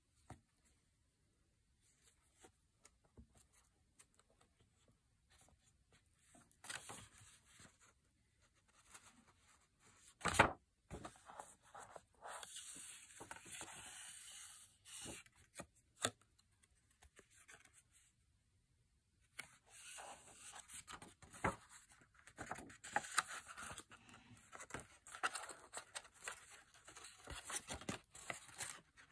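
Paper pages of a hardcover junk journal being turned and handled: irregular dry rustling and crinkling, denser in the last third. About a third of the way in there is a single sharp knock, the loudest sound.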